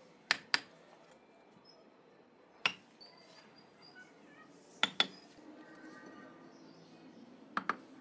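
Hammer tapping bricks to bed them into fresh mortar on the top course of a brick wall. There are seven sharp knocks, mostly in quick pairs, every two to three seconds.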